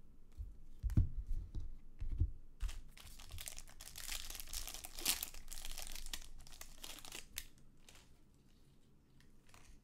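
A few low knocks of cards and hands against the desk, then several seconds of crinkling and tearing as a foil trading-card pack wrapper is ripped open and handled.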